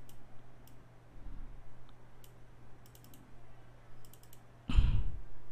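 Scattered clicks of a computer mouse and keyboard, some single and some in quick little runs, over a faint steady electrical hum. A louder low thump comes near the end.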